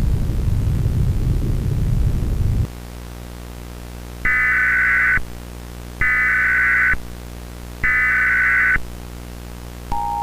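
A loud, harsh low-pitched static burst that cuts off about two and a half seconds in. Then three one-second bursts of Emergency Alert System SAME header data tones, a second apart. Near the end the steady two-tone EAS attention signal begins.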